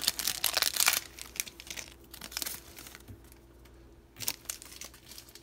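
Foil Pokémon card pack wrapper being torn open and crinkled in the hands. There is dense crackling for about the first second, then a few scattered crinkles, and a single sharp tap about four seconds in.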